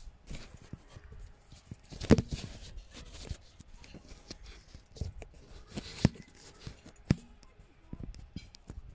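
Rustling with scattered sharp taps and knocks at no regular beat, the loudest about two seconds in and about six seconds in.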